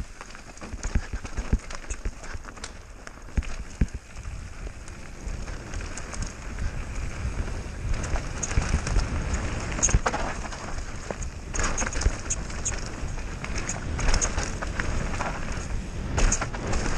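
Mountain bike descending a dirt forest trail. Its tyres run over dirt and leaves, and the chain and frame keep up a constant rattle of short clicks. Wind buffets the camera microphone with a low rumble.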